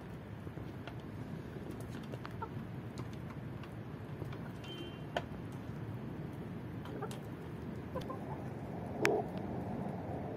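A flock of chickens feeding: soft clucking with scattered sharp pecking taps against the metal feeding pan, and a louder cluck with a sharp tap about nine seconds in.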